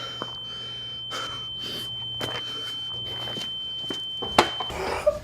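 A steady high-pitched electronic tone over a low hum, with light knocks and rustling; a sharp click sounds near the end, and the tone and hum stop just after it.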